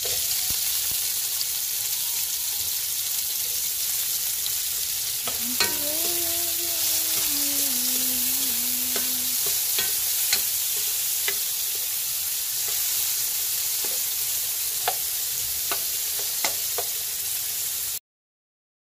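Sliced onion, garlic and tomato sizzling in hot oil in a metal pan, with a spoon stirring and clicking against the pan. From about five to nine seconds in, a faint tone steps down in pitch. The sound cuts to silence about a second before the end.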